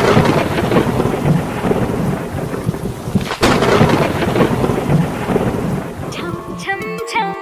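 Thunderstorm sound effect in a dance mix: two thunderclaps about three and a half seconds apart over steady rain noise, with music coming back in near the end.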